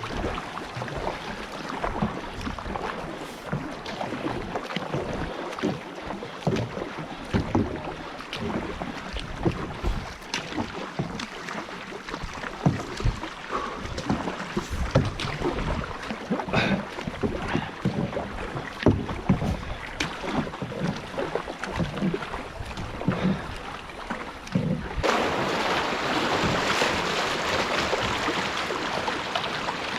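A canoe being paddled: irregular paddle splashes and knocks, with wind on the microphone. About five seconds before the end these give way to a steady rushing noise.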